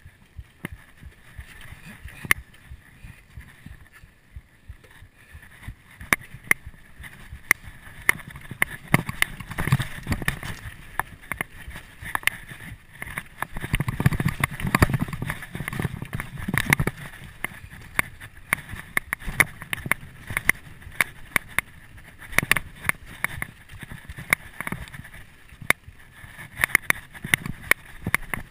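2011 Canyon Nerve AM 7 full-suspension mountain bike clattering down a rough dirt trail. A dense stream of sharp clicks and knocks from the bike sits over tyre rumble, heaviest around ten and fifteen seconds in.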